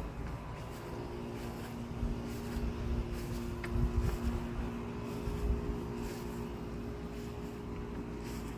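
Steady hum of a running air conditioner unit, with some low rumbling around the middle.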